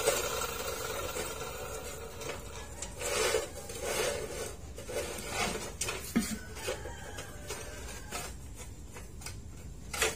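Steel rebar clanking and rattling against the cut-off saw's vise and base as the bars are shifted and clamped for the next cut, in scattered irregular knocks with a sharp click near the end. A steady hum from the abrasive chop saw fades out over the first couple of seconds.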